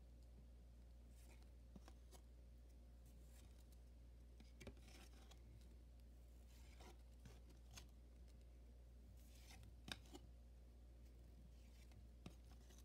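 Near silence over a low steady hum, with a few faint, short rustles and clicks of trading cards being slid and flipped through by hand.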